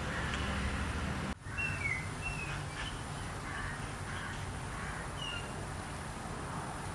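Outdoor ambience: a steady low hum and hiss that drops out briefly about a second and a half in, followed by a few short, falling bird chirps.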